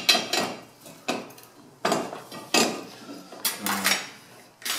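Metal scraper raking ash and soot out of a wood-burning stove's ash chamber: a series of scraping, clinking strokes, about one a second.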